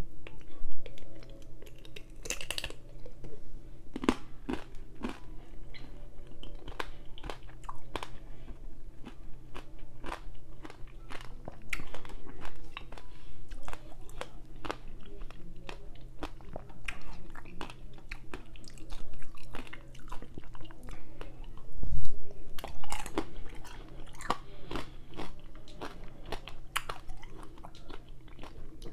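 Close-miked chewing of chocolate-dipped strawberries: a steady run of small wet clicks and smacks from the mouth, over a faint steady low hum. A single dull thump comes about three-quarters of the way through.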